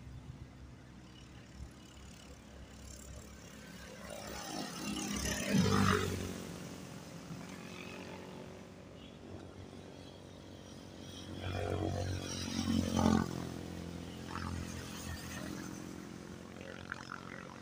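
Two motor vehicles passing along the concrete road, the first about six seconds in and the second about thirteen seconds in, each engine sound growing louder and then fading away.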